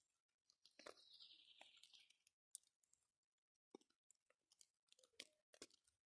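Near silence, with faint scattered clicks and a faint high hiss for about a second and a half near the start.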